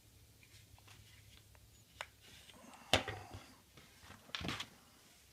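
Kydex knife sheath being handled: a small click about two seconds in, then a sharp knock about a second later as it is set down on the wooden workbench, and a short scrape a little after.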